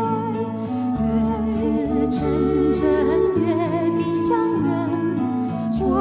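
A Mandarin pop ballad: female vocals carry a slow melody with vibrato over steady backing music with sustained low chords.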